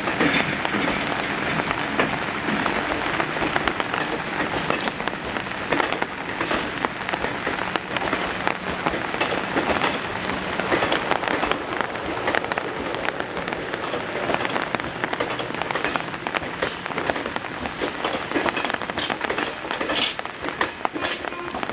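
Steady heavy rain falling, with individual drops striking close by; a few sharper drop hits stand out near the end.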